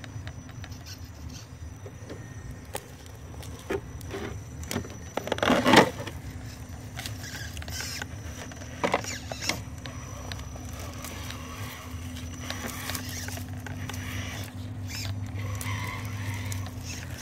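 Electric RC rock crawler's motor and gearing running in a steady low hum as it crawls slowly over rocks, with its tyres and chassis clicking and scraping on stone and twigs. A loud scraping crunch about five to six seconds in.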